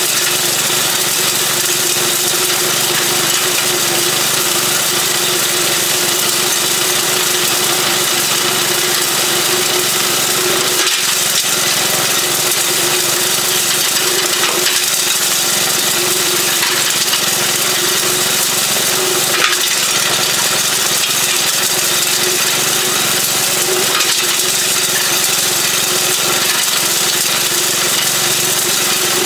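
A 3.5 horsepower small gasoline engine running steadily, driving a homemade beer-bottle crusher, with a few sharp cracks of glass bottles being broken up.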